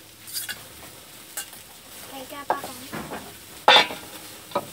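A metal fork stirring wet glass noodles in a stainless steel bowl, with scraping and a few sharp clinks of metal on metal. The loudest clink comes about three-quarters of the way through.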